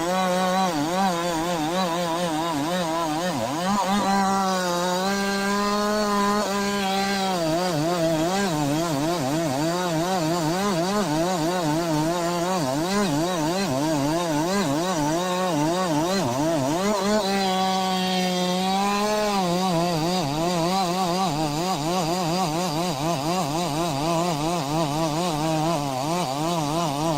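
Chainsaw running at high revs while cutting wood, its pitch wavering under load. Twice the pitch rises and holds steady for a few seconds.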